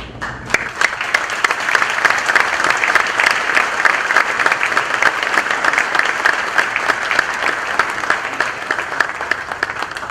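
Audience applauding, many hands clapping together. It starts about half a second in, keeps up steadily, and begins to thin out near the end.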